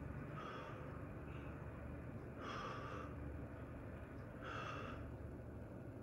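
A man breathing hard from exertion during a static bodyweight hold: three short, forceful exhales about two seconds apart.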